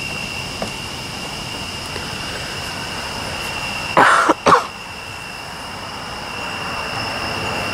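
A person coughs twice in quick succession, about four seconds in, over a steady high chirring of night insects.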